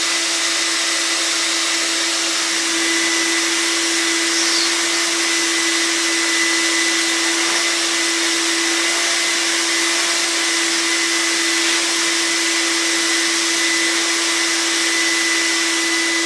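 Vacuum cleaner running steadily at a constant pitch, with a loud rushing whir as it sucks up dirt from an engine.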